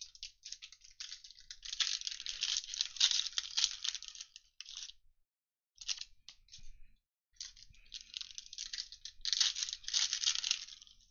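A trading-card pack wrapper crinkling and tearing as it is ripped open by hand. It comes in two stretches, with a short pause and a few small clicks between them.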